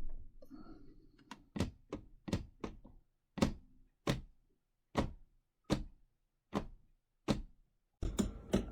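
KitchenAid KSC6223SS slow cooker's lid being rocked back and forth on the pot, knocking against the rim about ten times in a steady rhythm of a little over one knock a second. The lid does not sit flush, so it wobbles.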